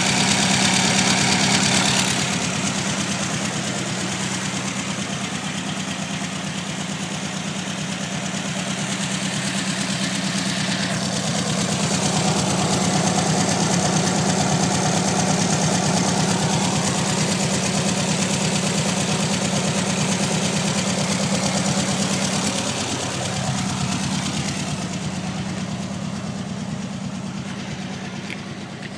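Air-cooled flat-four engine of a 1972 Volkswagen Type 2 camper idling steadily, heard close at the engine bay and at the tailpipe, and a little fainter near the end.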